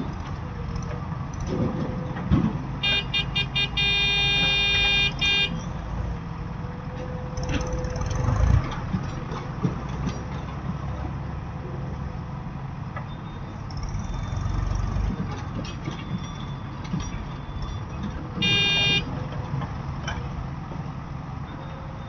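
Heavy diesel machinery running steadily, with a vehicle horn giving several short toots about three seconds in, then a held blast of about two seconds, and one more short blast near the end.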